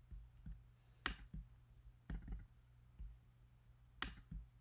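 Sparse clicks of a computer mouse: a sharp click about a second in and another near the end, with a few softer low knocks between, over a steady low electrical hum.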